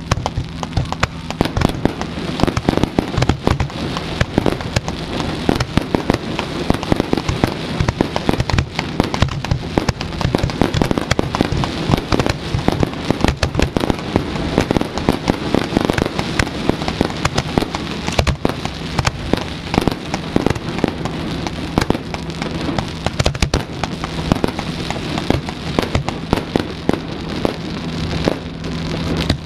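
Fireworks display bursting close by: a dense, continuous barrage of bangs and crackles with no pause. A steady low hum runs underneath.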